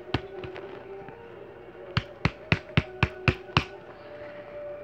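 A quick run of seven sharp clicks or snaps, about four a second, starting about two seconds in, over a faint steady hum.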